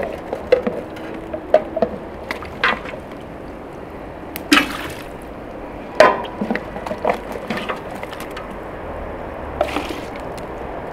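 Enamel mug scooping fried lamb pieces out of a large aluminium pot and tipping them into an enamel bucket: scattered knocks and scrapes of the mug against the pot and bucket rims, with wet sounds of meat and fat dropping in. A longer scrape comes about four and a half seconds in, and a sharp knock at about six seconds.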